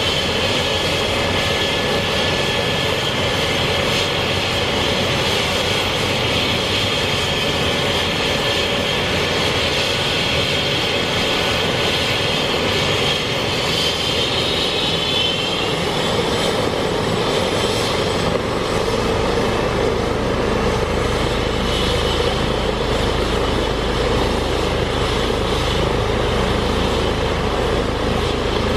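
Airbus H135 helicopter's turbine engines and rotors running on the ground before lift-off: a steady, high turbine whine over a dense rushing noise. About two-thirds of the way through, a deep low rumble joins in and stays.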